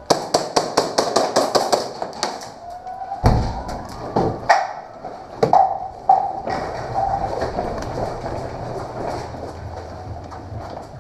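Airsoft gun firing a rapid string of about a dozen sharp shots over the first two seconds, followed by a few loud single knocks and a low shuffling of movement.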